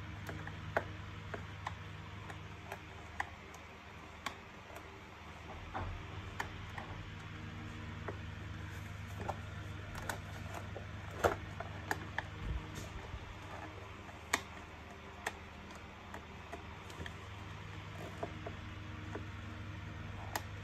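Irregular small clicks and taps of a screwdriver working against the plastic housing and parts of a Zelmer Solaris Twix vacuum cleaner, a few sharper than the rest, over a steady low hum.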